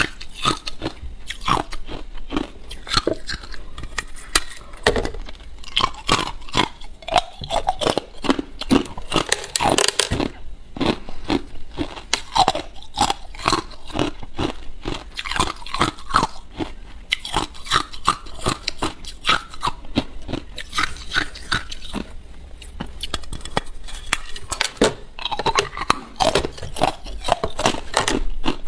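Ice being bitten and chewed close to the microphone: a rapid, irregular run of crisp crunches that goes on with only brief pauses.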